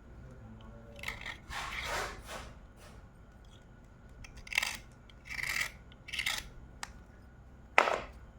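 Slate pencil being bitten and chewed: a series of short gritty crunches, with a sharp, loud crunch near the end.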